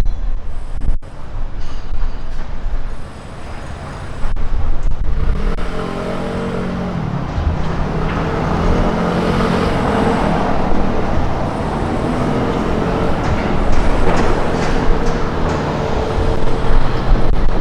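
Street traffic: a motor vehicle's engine running close by, growing louder about five seconds in and staying steady, over low wind rumble on the microphone.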